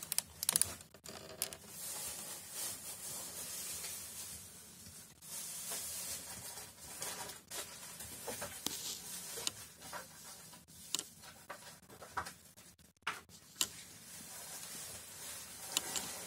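A cat grooming itself, licking its paw and face: soft wet licking and rubbing with many small tongue clicks.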